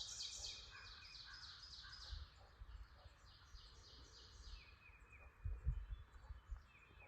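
Faint songbirds singing in woodland: a quick run of repeated high chirping notes, thinning out after the first few seconds, with a few soft low thumps about five to six seconds in.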